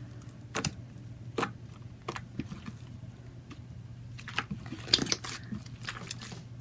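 Baby-oil-soaked slime being squished and pressed by hand, giving scattered sharp clicks and pops, several in quick succession about four to five seconds in. A faint steady low hum sits underneath.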